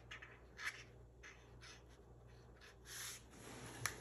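Black marker pen scratching on cardboard in short, separate strokes while a cartoon face is drawn, faint, with a sharp tick near the end.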